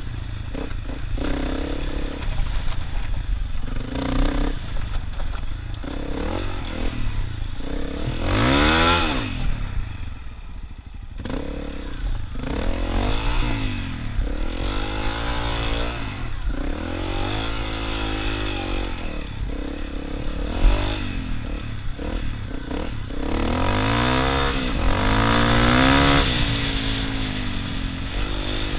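Dirt motorcycle engine running under way, its pitch rising and falling again and again as the throttle is opened and closed, loudest about a third of the way in and again near the end.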